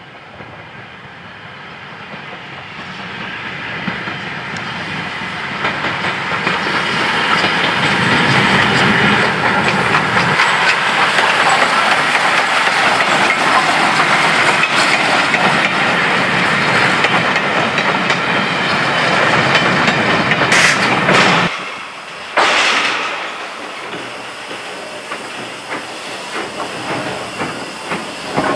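LMS Ivatt Class 2 2-6-0 steam locomotive passing close by with coaching stock, wheels clattering over the rail joints. It builds over the first several seconds and stays loud until it cuts off suddenly about 21 seconds in. After that a quieter hiss of steam follows from a Hunslet Austerity 0-6-0 saddle tank standing on a turntable.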